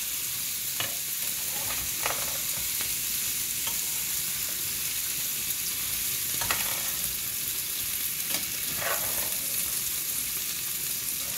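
Diced boiled potatoes sizzling in a non-stick pan as they are stirred with a spatula: a steady frying hiss with a few short scrapes of the spatula against the pan.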